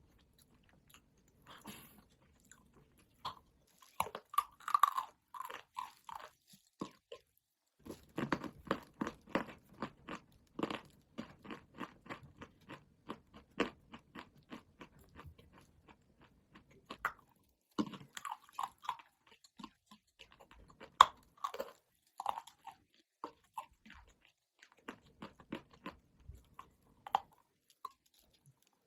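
Dry chalk being bitten and chewed close to the microphone: sharp, crisp crunches at an uneven pace. They are sparse at first, turn into a dense run of rapid chewing in the middle, and one loud bite-crack comes about two-thirds of the way through.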